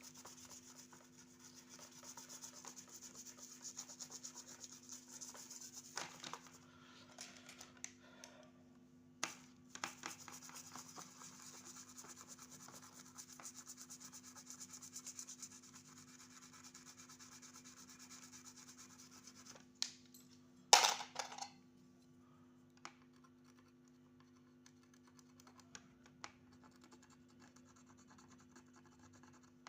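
Scratching and rubbing on a surface in two long spells, then a short louder scrape about two-thirds of the way in and a few faint ticks, all over a steady low electrical hum.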